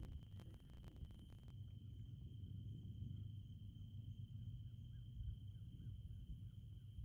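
Faint field ambience: insects trilling in one steady high tone over a low rumble, with a few light clicks in the first second and a half, then a run of short, evenly spaced chirps.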